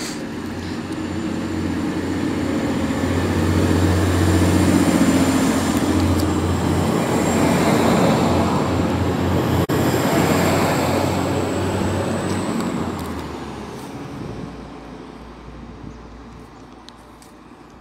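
TransPennine Express Class 185 diesel multiple unit running along the platform. Its diesel engines rumble with a thin high whine over them, growing louder for the first several seconds. The sound fades away from about thirteen seconds in as the train draws off.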